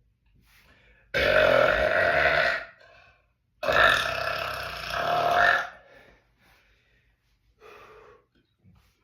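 A man burping: two long, loud burps, each lasting about a second and a half to two seconds, the second swelling again just before it ends. A short, much quieter sound follows near the end.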